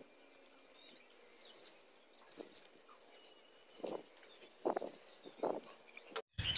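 Small splashes and drips of water as handfuls of washed drumstick leaves are lifted by hand out of a steel bowl of water, with three short splashes in the second half. Faint bird chirps sound in the background early on.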